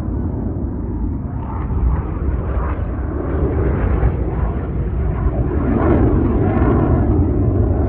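BAE Hawk jet trainers' Rolls-Royce Adour turbofans, a steady deep jet rumble that grows louder towards about six seconds in as the jets pass.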